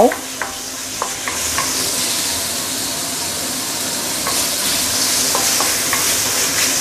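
Diced chicken frying in spice paste in a stainless steel wok: a steady sizzle. A wooden spatula stirs it, scraping and tapping the pan now and then.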